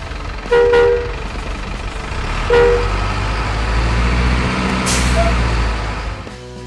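Truck horn giving two short honks, followed by a low engine rumble that swells and then fades, with a brief hiss of air about five seconds in.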